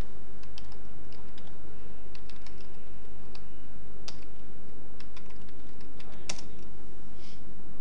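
Computer keyboard being typed on, a run of irregular key clicks as a short command is entered, over a steady low hum.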